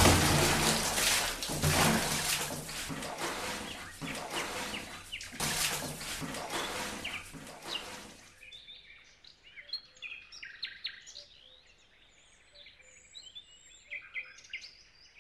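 Water splashing as two children jump into a pond and swim, dying away after about eight seconds; then faint birds chirping.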